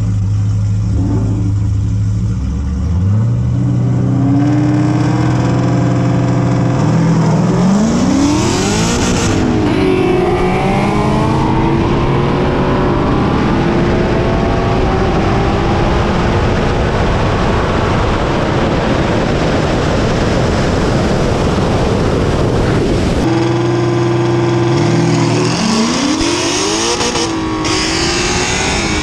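A sixth-generation Chevrolet Camaro with an 8-speed automatic and a 10-speed automatic Ford Mustang with a Coyote 5.0 V8, launching side by side in a drag race. The engines run and rev at the line, then climb steeply in pitch at full throttle, the automatic upshifts breaking the climb into steps. About three-quarters of the way through, the sound changes abruptly back to engines running steadily at the line, and a second hard launch with rising revs and upshifts follows.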